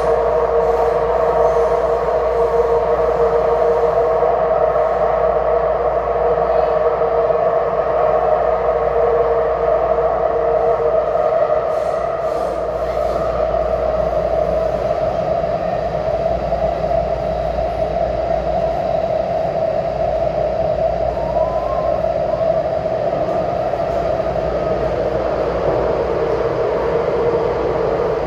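Taipei Metro C371 high-capacity steel-wheel metro train running between stations, heard from inside the passenger car: a steady running noise with a constant hum of a few tones.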